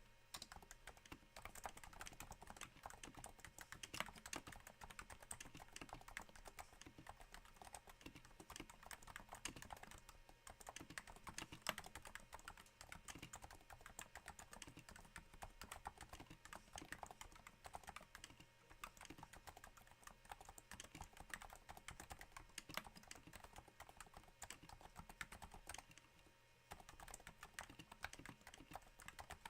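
Steady, fairly slow typing on a Cooler Master Novatouch keyboard with Topre switches damped by Hypersphere silencing rings: a faint, dense patter of soft keystrokes, with a short pause near the end.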